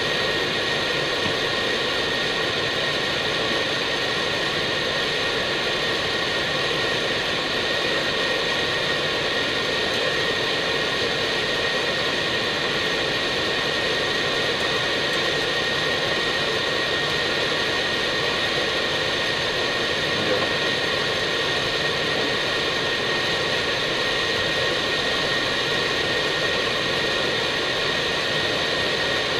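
Steady cockpit noise of an Airbus A319 in flight: a constant rush of airflow and jet engine noise with a steady high whine running through it.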